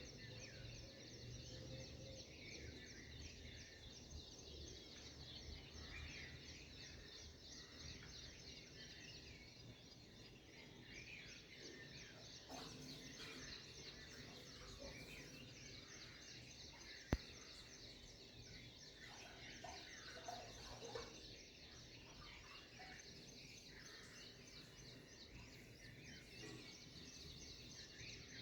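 Faint morning bird chorus: a steady, rapid high-pitched chirping throughout, with scattered shorter bird calls over it. One sharp click sounds about seventeen seconds in.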